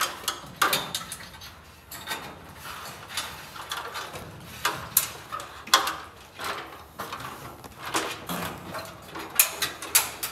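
Irregular metallic clinks and rattles as a garage door's steel lift cable is worked up between the door and the jamb brackets.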